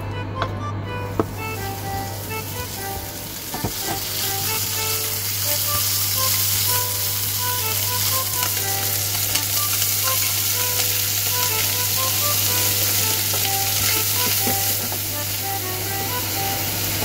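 Diced chicken thigh and chopped onion sizzling as they fry in butter in a nonstick frying pan, stirred with chopsticks. The sizzle swells to full strength within the first two seconds, and a few sharp clicks of the chopsticks on the pan come early.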